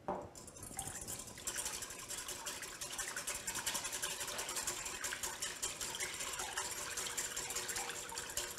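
Wire whisk beating lemon juice and olive oil in a glass bowl: a fast, steady run of whisk strokes sloshing the liquid and clicking against the glass, picking up about a second in, as the oil is worked in to emulsify a vinaigrette.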